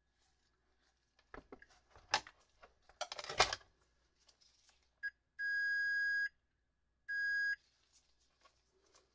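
Electronic beeps from the beeper of a Capacitor Wizard in-circuit ESR meter: a brief blip, then a beep of about a second and a shorter one of about half a second, all on one steady pitch. Before them come clicks and knocks of the meter, tools and probe leads being handled, the loudest about three and a half seconds in.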